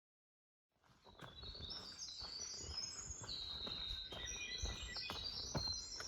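After about a second of silence, songbirds sing many quick, high phrases, over the dull thuds of footsteps walking on the trail.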